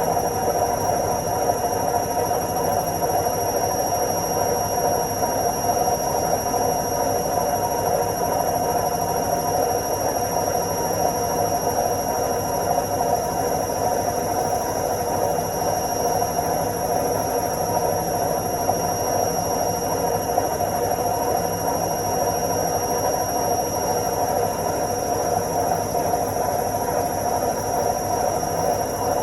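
Washing machine on its spin cycle: the drum spinning at a steady speed, a constant whirring drone with a thin, high, steady whine above it.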